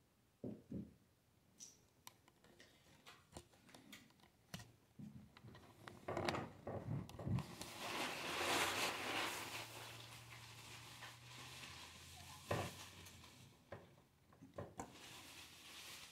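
Handling noise: fabric rubbing and rustling over the microphone, swelling to its loudest about halfway through and then easing off, with scattered small clicks and knocks and one sharper knock later on.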